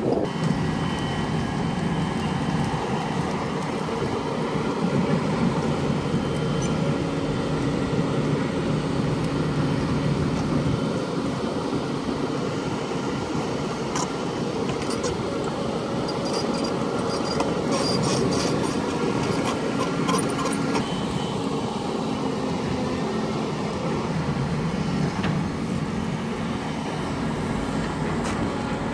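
Long-reach crawler excavator's diesel engine running steadily while the machine digs mud, with a scatter of sharp metallic knocks about halfway through.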